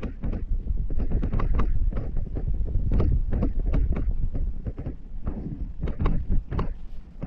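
A car driving over rough, bumpy ground, with a strong low rumble and a rapid, irregular run of knocks and rattles as it jolts along. Wind buffets the microphone.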